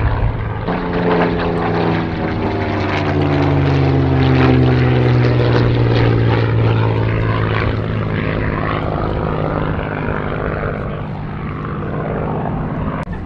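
Supermarine Spitfire's Merlin V12 engine and propeller droning loudly as the fighter flies past in a display. The engine note drops in pitch as it passes, from about one to five seconds in, then holds steady as it banks away.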